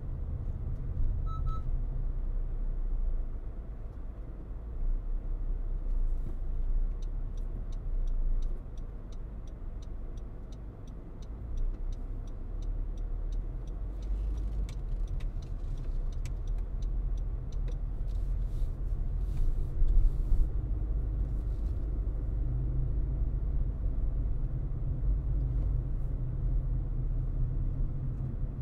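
Car driving along a road: a steady low rumble of road and engine noise, with a faint, quick regular ticking for several seconds about a third of the way in.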